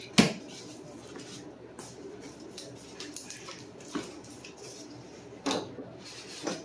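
A cardboard box being opened by hand: a sharp snap just after the start, then rustling and scraping of the flaps and packing paper, with a click about four seconds in and a couple of knocks near the end.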